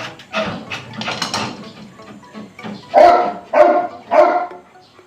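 A dog barking: three loud barks about half a second apart, starting about three seconds in, after softer sounds earlier on.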